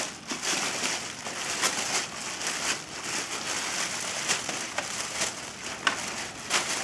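Plastic packaging crinkling and rustling as a mobility scooter's front basket is pulled out of its wrapping, with a few sharp clicks and knocks of the basket against it.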